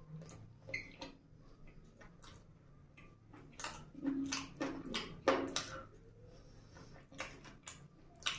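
Close eating sounds of a person chewing sauce-coated fried chicken lollipops: wet chewing and lip smacks in irregular clicks, busiest in the middle stretch.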